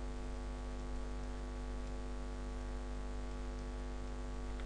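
Steady electrical mains hum with a buzz of overtones, unchanging throughout.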